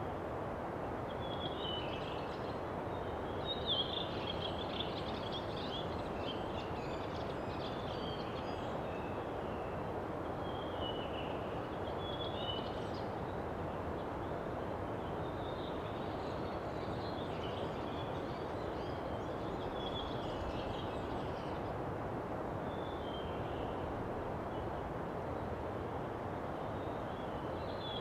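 Birds chirping and twittering in short scattered bouts over a steady background noise, with one brief louder tick about four seconds in.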